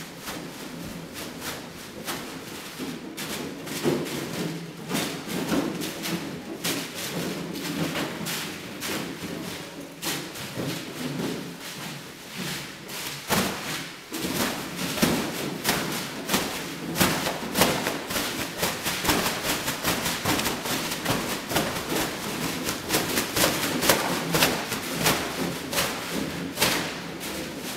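Plastic bags crinkling and rustling as they are shaken and swung around horses to get them used to the sound, with scattered dull thuds.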